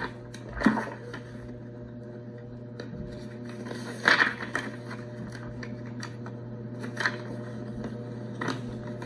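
Cheap USB-powered Phission soundbar putting out a steady low hum, with a handful of short clicks and knocks, the loudest about four seconds in.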